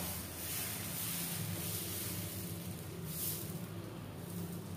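Dosa batter being spread on a hot nonstick tawa with the back of a steel ladle: a soft hiss and scrape of batter on the pan, over a steady low hum.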